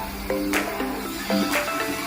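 Background music: held notes that change in steps over a steady beat of about one strike a second.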